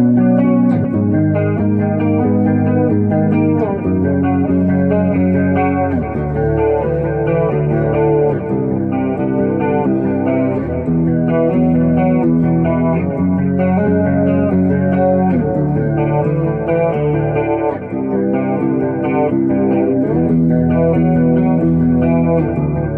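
Guitar in drop B tuning (C sharp standard with the sixth string down to B) playing held chords that change every second or two, with a few slides from one chord to the next.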